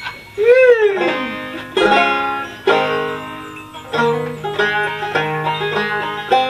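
Open-back five-string banjo being picked, launching into a tune about a second in, plucked notes ringing over a steady low drone. It is preceded by a short voice-like sound that rises and falls in pitch.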